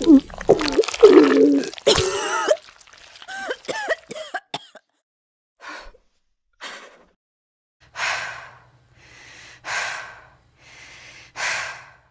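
Wet throat and stomach gurgles with sliding pitches, the sound of a regurgitation, followed by a run of heavy, panting breaths; the last three breaths are longer and louder.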